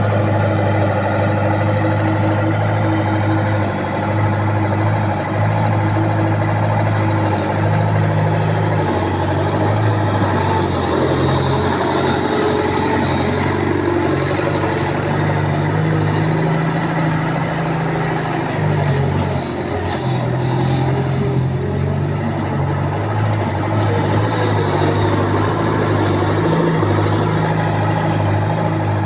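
Bobcat construction machine's diesel engine running steadily, its pitch stepping up and down a little now and then.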